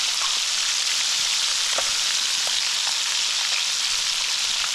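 Fish frying in hot oil and lard: a steady sizzle with a few faint pops.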